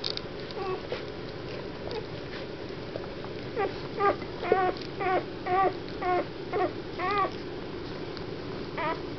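Newborn Weimaraner puppies squeaking and whimpering while they nurse. A quick run of about eight short, high cries comes in the middle, with fainter squeaks before and two more near the end.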